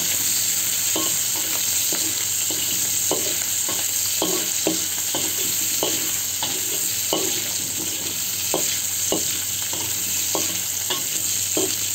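Shrimp frying in a wok with a steady sizzle, while a metal spatula scrapes and knocks against the wok every half second or so as they are stirred.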